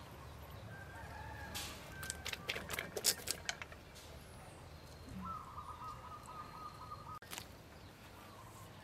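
Chickens in the background, with a rooster crowing once, a drawn-out wavering call, about five seconds in. Before it comes a quick run of sharp clicks and taps from metal tongs and a fork working on a string-tied pork roll on a wooden board.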